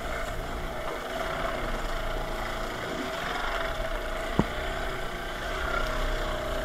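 Surf washing and breaking around a small fishing boat as it is rowed through the waves, over a steady hum from the boat. One sharp knock a little over four seconds in.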